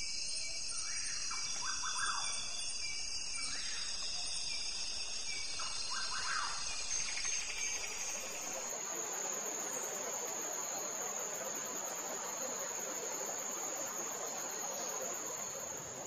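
Tropical forest ambience: insects buzz in several steady high-pitched layers, and a few short bird calls come in the first half. From about eight seconds in, a single high insect whine holds over a steady hiss.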